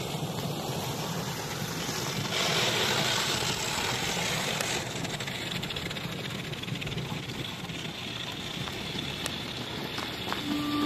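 Steady rushing wind noise on the microphone, brighter and hissier for a couple of seconds about two seconds in.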